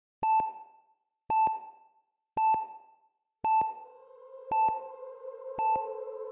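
A high electronic beep repeats about once a second, six times in all, each with a sharp double click at its start and a quick fade. About three and a half seconds in, a low sustained synth pad comes in underneath.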